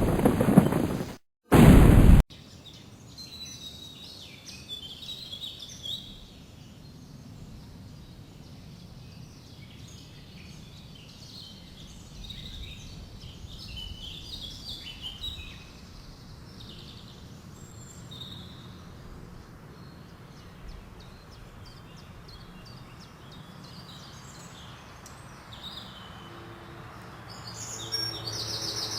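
A loud blast-like rumble that cuts off about two seconds in, then a chorus of songbirds chirping and singing over a faint steady outdoor background. A louder sound comes in near the end.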